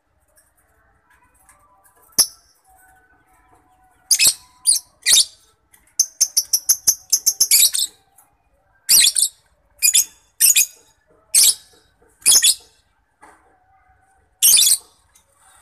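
Lovebird calling in high, sharp chirps, some single and some in pairs, with a quick run of about eight chirps in the middle.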